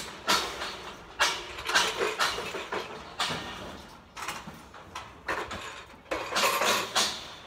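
Steel scaffolding parts clanking as they are knocked apart and handled: a series of sharp metal knocks about a second apart, with a longer rattle of metal near the end.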